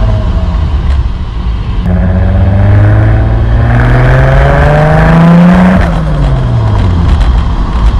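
Nissan Silvia S13's engine accelerating: its pitch climbs steadily for about four seconds from about two seconds in, then drops away as it comes off the throttle.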